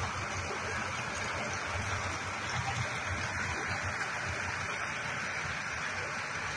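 Cow-dung dewatering plant running: the electric motors of its vertical slurry pumps and slurry moving through the hoses make a steady rushing noise with a low hum.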